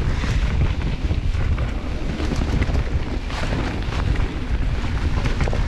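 Wind rumbling on the microphone of a mountain bike riding downhill at speed, with tyre and trail noise underneath.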